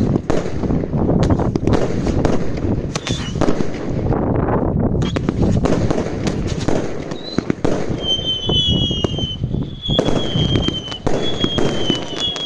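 Category 2 and 3 consumer fireworks going off in a rapid barrage of bangs and crackles. From about eight seconds in, high thin whistling tones, falling slightly in pitch, sound over the bangs.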